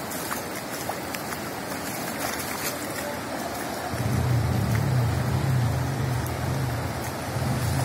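Steady hiss of rain and floodwater running over a street, with a low rumble joining about four seconds in.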